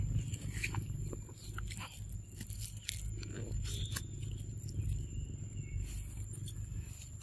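Macaque biting and sucking at a small paper milk carton: scattered crinkles and clicks over a steady low rumble, with a thin steady high whine behind.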